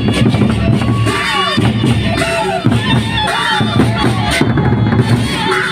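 Gendang beleq ensemble playing: big Sasak barrel drums and clashing cymbals in a steady beat, with a melody of short rising-and-falling notes over them.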